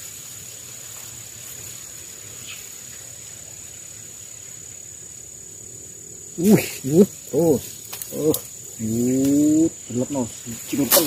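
Steady high-pitched insect drone over a faint hiss. From about six seconds in it is overtaken by louder vocal calls: several short arching calls about two a second, then one longer, slightly rising call, then more short ones.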